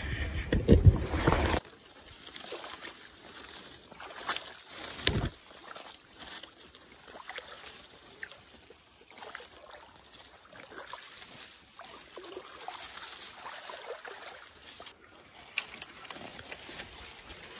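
Footsteps wading through shallow swamp water, with sloshing and brushing through ferns and palmetto undergrowth. Irregular steps, louder for the first second and a half, then softer, with a few sharp snaps near the end.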